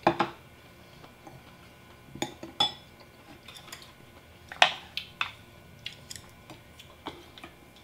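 Spoon and chopsticks clinking against ceramic bowls and plates while eating: about a dozen separate sharp clinks spread across several seconds, some with a brief ring, the loudest about halfway through.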